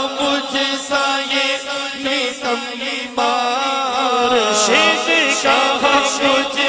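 A man sings a manqabat (Urdu devotional praise song) into a microphone, holding long ornamented notes with wavering pitch. A steady low drone sounds underneath.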